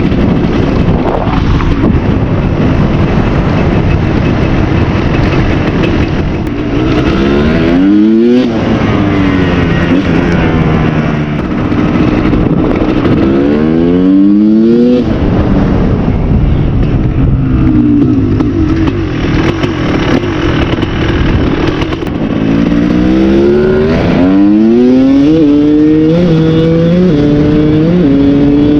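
Motorcycle engine accelerating hard through the gears several times: its pitch climbs, drops back at each shift, then climbs again, with the longest run of quick upshifts near the end.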